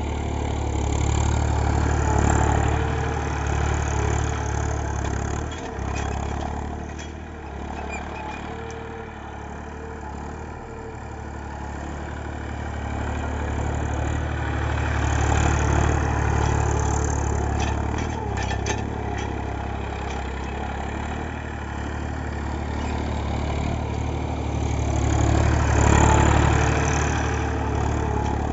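Tractor diesel engine running as it drives over heaps of harvested paddy straw to thresh the rice, growing louder and fainter three times as it passes close by, with a few brief rattles near the middle.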